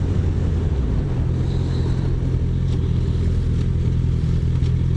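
Motorcycle engine running steadily while riding, with a slight change in pitch about a second in, under a steady rush of wind.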